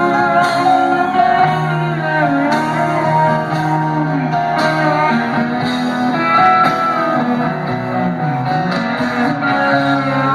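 A live rock band plays a slow number, amplified and loud. An electric guitar glides between long sustained notes, slide-style, over held chords and a light beat.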